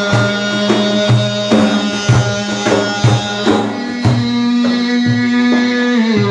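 Instrumental break in an Iraqi lament song: a steady hand-drum beat, about two strokes a second, under long held melodic tones.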